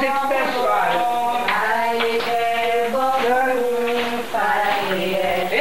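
Voices singing a candomblé ritual chant, held notes moving from one pitch to the next.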